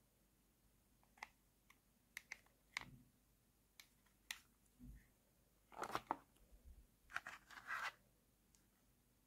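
Faint hard-plastic toy food pieces clicking and scraping as they are handled: scattered light clicks, then two short spells of rattling and scraping about six seconds and seven and a half seconds in.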